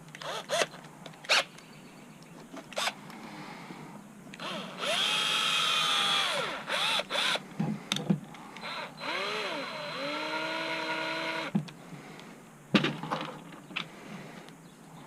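Small cordless power screwdriver driving screws in two runs of about two seconds each, the motor pitch rising as it spins up and dropping as it stops, with clicks and knocks of parts being handled in between.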